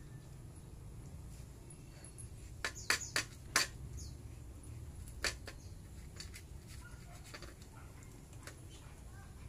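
Belgian Malinois eating dry kibble from a plate: a quick cluster of sharp crunches and clicks about three seconds in, another just after five seconds, then fainter crunching.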